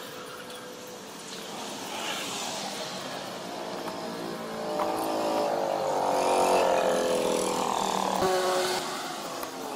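A motor vehicle's engine passing by. It grows louder to a peak about six seconds in, then fades with its pitch dropping.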